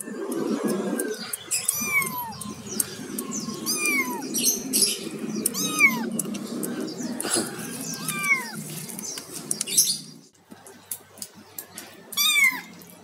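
Young kittens meowing: high, thin meows that slide down in pitch, about one every two seconds, with a last, louder one near the end.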